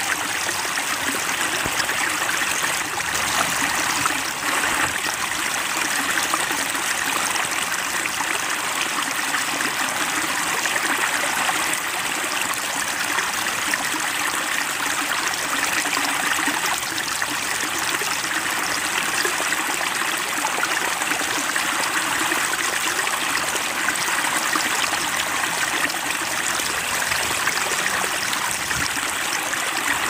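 Steady trickling, splashing stream water, with no birdsong over it.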